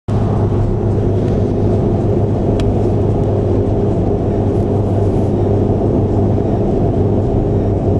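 Steady low drone of engine and tyre noise inside a car cruising at about 90 km/h on a motorway, with one brief click about two and a half seconds in.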